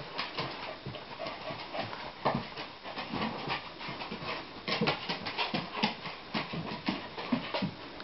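Two dogs play-fighting on a wooden floor: a rapid, irregular patter of claws clicking and scuffling on the boards, thickest around the middle, mixed with short dog vocal noises.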